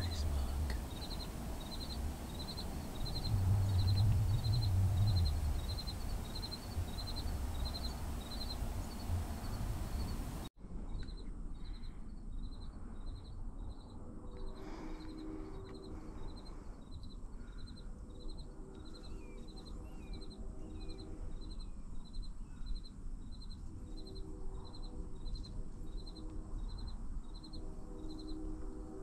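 An insect chirping steadily in the woods: a short high chirp repeating evenly about one and a half times a second throughout. A low rumble is loudest a few seconds in, and a few faint bird chirps come later.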